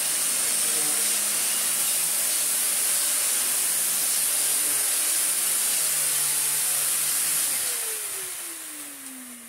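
Miele Medicair 1600 (S168) stick vacuum cleaner running steadily with a hissing rush of air as its floor head is pushed over carpet. About three-quarters of the way through it is switched off and the motor winds down, its pitch falling.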